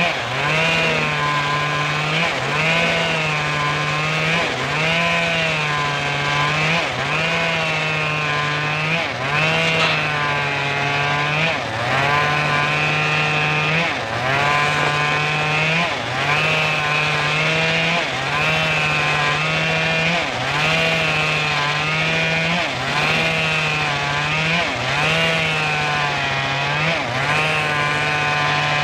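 Homemade engine-driven circular saw running and cutting through a log, its pitch dipping and recovering about once a second in a steady, repeating cycle.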